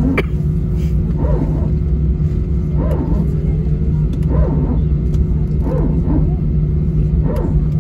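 Steady low rumble of an Airbus A320 cabin while the jet taxis. Over it, a short bark-like sound repeats about every second and a half, typical of the A320's hydraulic power transfer unit barking during taxi after landing.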